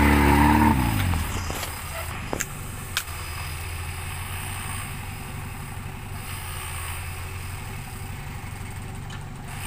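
Suzuki Vitara off-road rig's engine revving hard, then dropping back about a second in to a steady low running as it crawls through mud. Two sharp clicks come a couple of seconds in.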